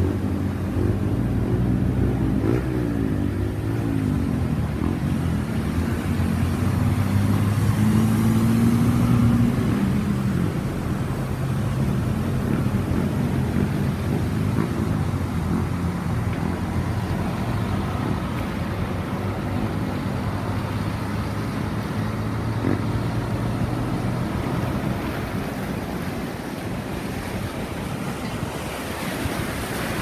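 A vehicle's engine running as it drives through deep floodwater, with a steady wash of water against the vehicle, heard from inside the cab. The engine note rises and falls a few times.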